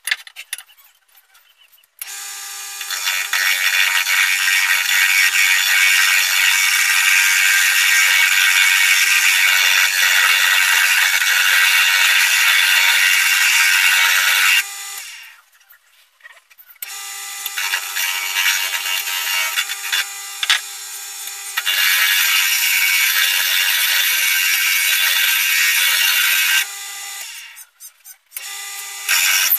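Wood lathe spinning a celery-wood pen blank with sandpaper pressed against it: a loud, even hiss over the motor's steady hum. It starts abruptly about two seconds in, breaks off for a couple of seconds midway, and cuts out again shortly before the end.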